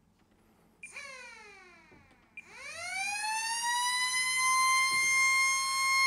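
Resin 3D-printed tornado siren driven by a miniquad brushless motor: a short blip about a second in that falls in pitch as it spins down, then from about two and a half seconds it winds up again, the wail rising and then holding a steady high pitch.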